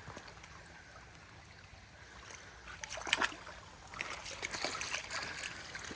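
Faint trickle of a small creek, with a few light splashes and rustles from about halfway through.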